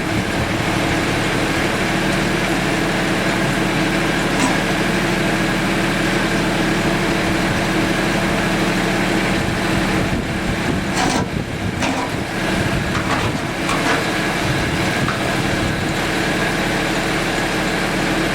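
Mahindra Max 24 sub-compact tractor's diesel engine running steadily, with a brief unsteady stretch a little past the middle.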